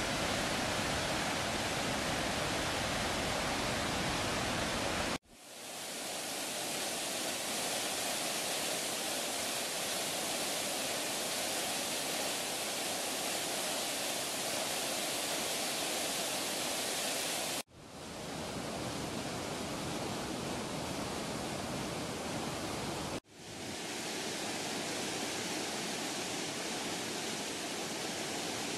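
Whitewater of a waterfall and rapids rushing through a narrow rock gorge, a steady rushing noise. It drops out abruptly three times, about 5, 18 and 23 seconds in, and swells back up each time.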